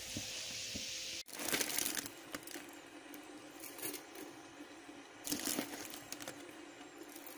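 French toast sizzling in a frying pan for about the first second. Then, after an abrupt break, three short bursts of crinkling and rustling as a box of foil-wrapped tea bags is handled.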